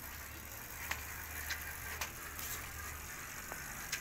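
Child's bicycle with training wheels rolling over a tiled floor, with a few scattered light clicks and rattles from the bike.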